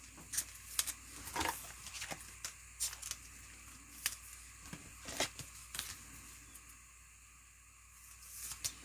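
Faint, irregular clicks and light rustles of trading cards being handled, about a dozen soft taps spread over the first six seconds.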